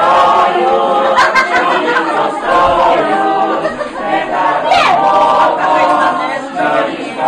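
Small group of women and men singing a song together, unaccompanied.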